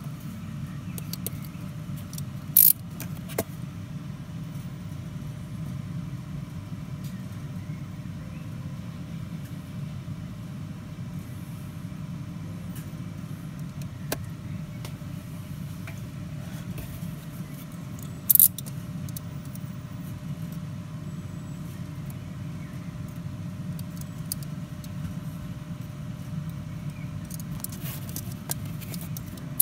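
A few short, sharp scrapes of a utility knife blade dragged across the enamel face of a cloisonné metal bookmark in a scratch test, twice loudly and in a quick cluster near the end, over a steady low background rumble.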